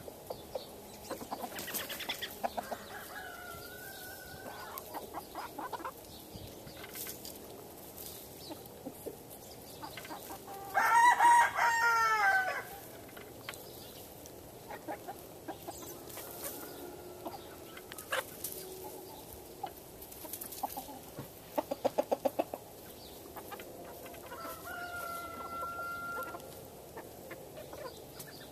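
Free-range chicken flock: hens clucking and giving drawn-out calls, with a rooster crowing once for about two seconds near the middle, the loudest sound. A quick run of short clucks comes about three-quarters of the way through.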